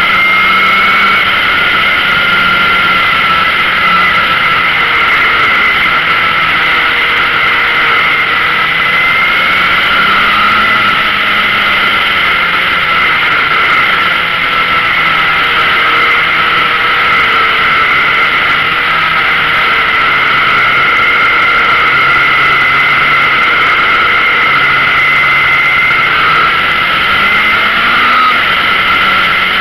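Yamaha XJR air-cooled inline-four motorcycle engine running steadily under way, with wind rush over the bike. The engine pitch rises briefly about ten seconds in and again near the end as the throttle opens.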